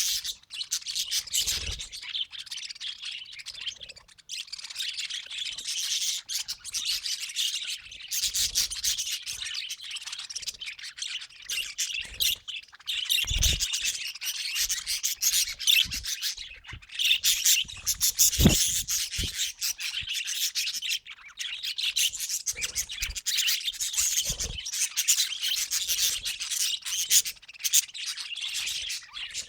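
Budgerigars chattering and warbling in a fast, nearly unbroken stream of high chirps, with a few short knocks.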